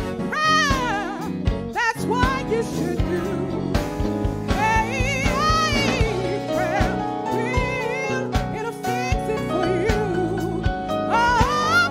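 Gospel song: a singer holds long notes with a wide vibrato over sustained keyboard chords.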